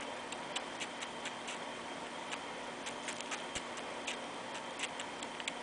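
Young squirrel suckling milk from a syringe: faint, irregular clicking, a few clicks a second, sometimes in quick clusters.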